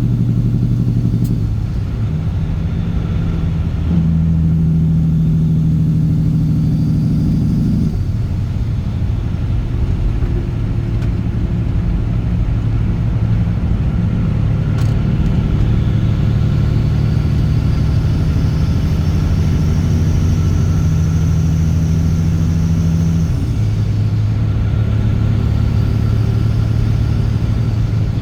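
Caterpillar C15 ACERT inline-six diesel truck engine with a straight-piped exhaust, running under way with a steady low drone. Its pitch steps to a new level a few times, about 4 and 8 seconds in and again near 23 seconds.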